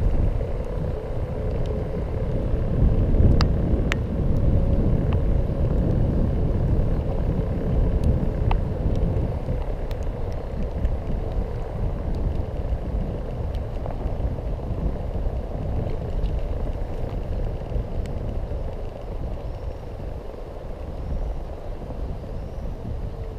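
Steady low rumble of wind and road noise from riding a Xiaomi M365 electric scooter, with a faint steady whine in the first part and scattered sharp clicks and rattles.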